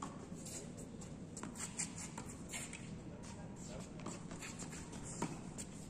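Tennis ball being struck by rackets and bouncing on a hard court during a doubles rally: a series of short sharp pops a second or so apart, the clearest about five seconds in.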